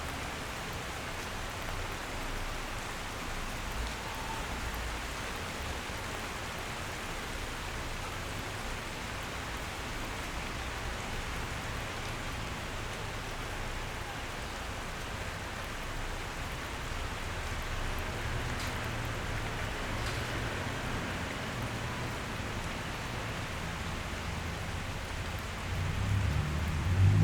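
Steady rain falling, an even hiss of many drops. A low rumble swells near the end.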